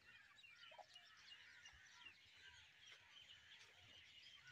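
Faint, continuous high chirping of chicks, many short overlapping peeps.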